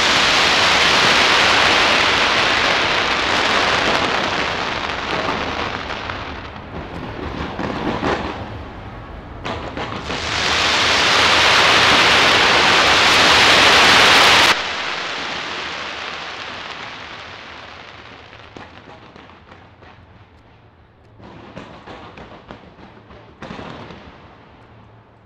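Fireworks fired from the Taipei 101 skyscraper: a dense, continuous crackle of many shells going off together. It swells into a louder barrage that stops abruptly about halfway through, then fades off, with two short further bursts near the end.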